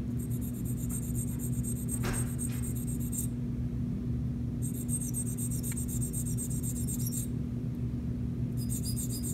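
A sharpening stone is rubbed in rapid short strokes against the cutting edge of a dental sickle scaler. It makes a fine, high rasping scrape in three bouts of a few seconds each, with brief pauses between.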